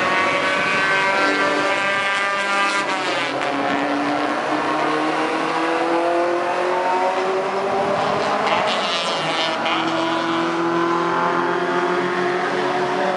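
Classic saloon race cars, a Ford Capri and then a Mini, passing at high revs. Their engine notes climb as they accelerate, and one drops in pitch sharply as it goes past about three seconds in.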